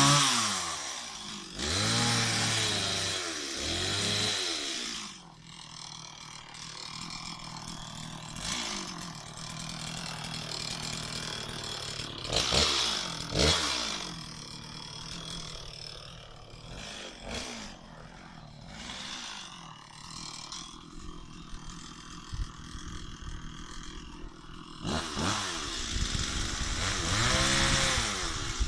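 Stihl MS 260 two-stroke chainsaw engine idling, with the throttle blipped again and again so the engine revs up and drops back. There are several quick revs near the start, a few single ones through the middle, and another run of revs near the end.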